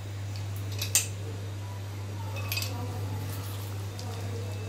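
Kitchen utensil clinks while lemons are squeezed by hand over a steel kadai: one sharp clink about a second in and a lighter click about halfway through, over a steady low hum.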